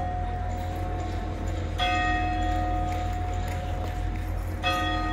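A large tower clock bell striking the hour, two strokes nearly three seconds apart, each ringing on and overlapping the last, over a steady low rumble.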